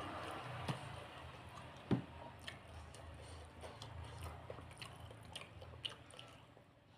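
A person chewing food close to the microphone, with wet mouth clicks and smacks scattered through, and one sharper knock about two seconds in.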